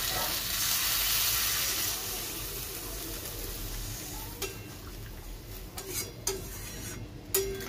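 Chicken curry in spice paste sizzling in a steel wok as it is stirred with a metal spatula. The sizzle is loudest in the first two seconds; from about halfway in, the spatula clicks and scrapes against the pan several times.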